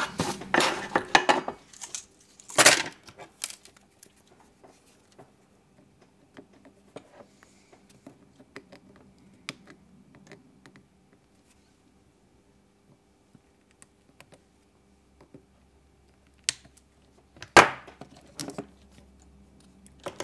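Small clicks and clatters of metal hand tools and small parts being handled and set down on a wooden workbench, with a sharp knock about three seconds in and another near the end, and faint scattered ticks between.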